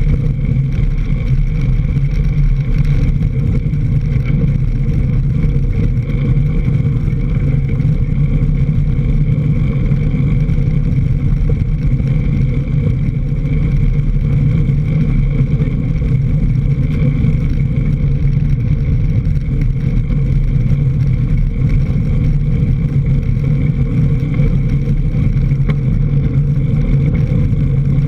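Steady rumble of a mountain bike's tyres rolling fast over a leaf-covered dirt trail, heard close to the front wheel, mixed with wind rushing over the microphone.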